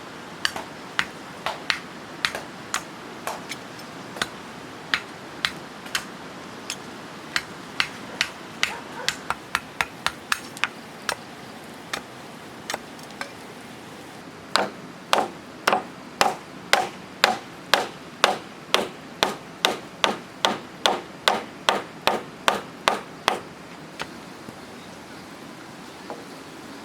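Hammer blows on wood, struck in quick runs with short pauses between them, as in building a wooden structure; the striking stops about 23 seconds in.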